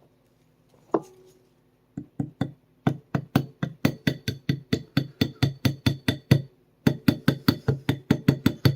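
Polymer face of a gunsmith hammer tapping a roll pin into the P365's polymer grip module to hold the ejector: one knock, then a fast, even run of taps, about three a second, with a short break about six seconds in.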